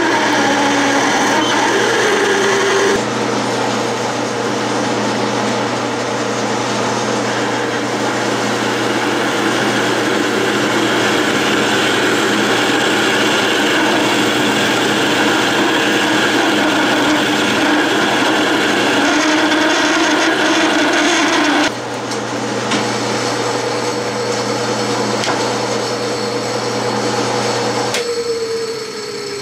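Clausing metal lathe running while a large taper-shank twist drill cuts into aluminum stock: a steady motor hum under a dense cutting noise. The cutting noise eases about three quarters of the way through, and near the end the motor is switched off and the spindle winds down with a falling tone.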